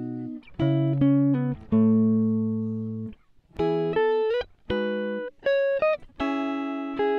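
Background music: a plucked guitar playing a slow run of chords and notes, each one struck and left to ring and fade before the next.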